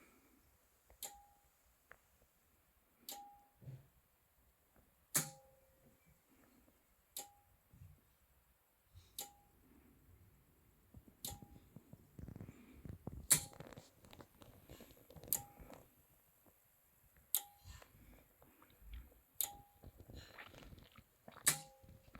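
Anker Solix C1000 power station's AC charging relay clicking about every two seconds, each click followed by a brief tone: the unit keeps switching charging on and immediately off again while in UPS mode, a fault the owner puts down to the battery reading just under full.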